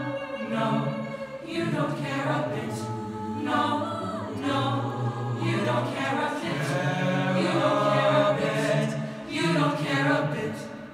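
High-school a cappella group singing: many voices, with no instruments. The singing dies away at the very end.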